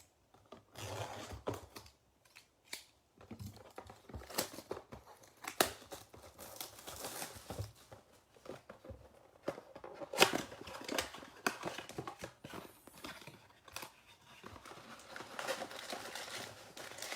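A trading-card blaster box being torn open by hand: plastic wrap and cardboard tearing and crinkling, and foil packs rustling as they come out, with a few sharp snaps.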